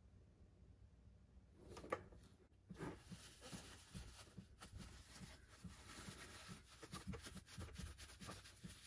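Paper towel crinkling and rustling in gloved hands as an oil drain plug is wiped clean, a dense run of small scratchy crackles. A single knock comes just before two seconds in, after a quiet start.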